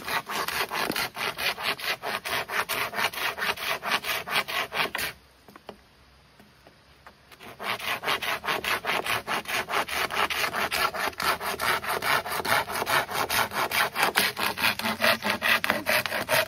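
Small hand pruning saw cutting through a thick green bamboo culm in quick, even back-and-forth strokes, about four a second. The sawing stops for a couple of seconds about five seconds in, then starts again.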